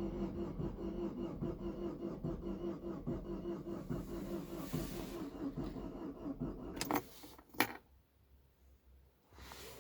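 Saab 9-5 2.0 four-cylinder petrol engine cranking on the starter with a steady rhythmic chugging, turning over but not firing. The cranking stops about seven seconds in, followed by two sharp clicks.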